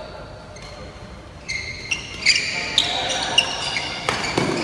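Badminton rally: sharp racket hits on the shuttlecock come in quick succession from about a second and a half in, with short high squeaks from court shoes on the floor between them.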